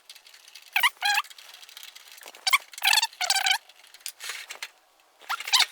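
Repeated short, squeaky metallic squeals as the power supply's mounting screws are turned out of the computer case's sheet metal. There are about eight chirps of wavering pitch with short gaps between them.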